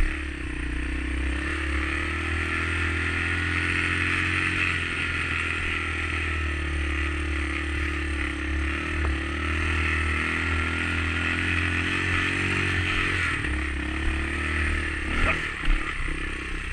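Dirt bike engine running at a fairly steady throttle under way, its pitch drifting gently up and down. A couple of short clattering knocks come near the end.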